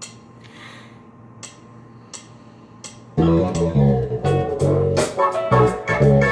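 Evenly spaced count-in ticks about every 0.7 s, then about three seconds in a funk backing track starts loud, with a Squier Precision Bass playing through a Boss GT-6B bass processor's 'pseudo clavinet' patch with compression, chorus and reverb. The groove is in F sharp Dorian.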